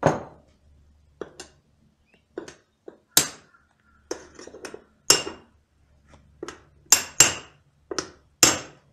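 Hammer striking an antique hoop driver to drive a steel band down a wooden bucket, tightening the staves together. A series of sharp, irregular blows, some with a short metallic ring.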